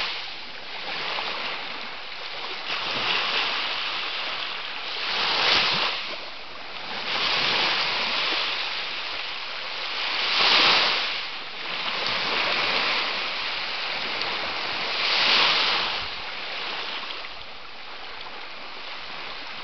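Waves washing onto a shore: a rushing noise that swells and falls back, peaking about every five seconds.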